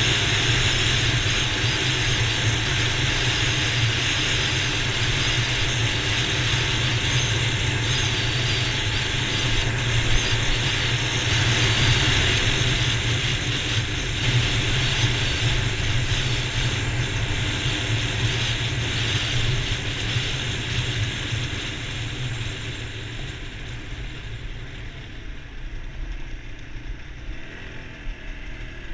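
Dual-sport motorcycle running at speed on a gravel road: a steady engine drone mixed with mechanical rattling and road noise. It gets quieter over the last several seconds as the bike slows down.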